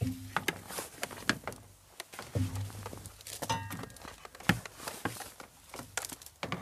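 Irregular clicks, taps and light knocks of things being handled, with a short squeak about three and a half seconds in.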